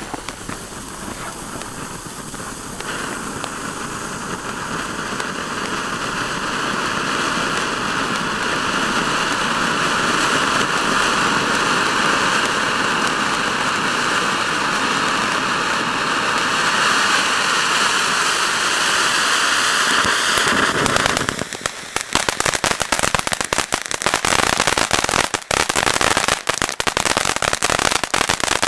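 Ground fountain firework spraying sparks, a steady rushing hiss that builds in loudness over the first several seconds. About three-quarters of the way through it changes to a dense, fast crackling of many small pops.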